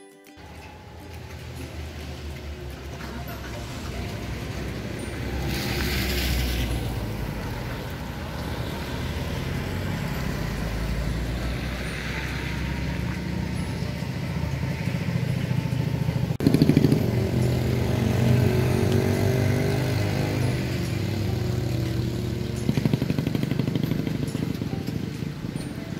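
Motor vehicle engine running with a steady low rumble, with tyre hiss of traffic passing twice on the wet road. About two-thirds of the way through it gets louder, with a pitched engine note that shifts slightly.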